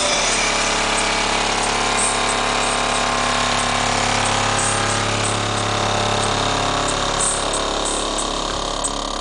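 Loud bass from two 18-inch Fi BTL subwoofers on an 800-watt amp, heard inside the truck cab: steady deep bass notes with a harsh buzz over them.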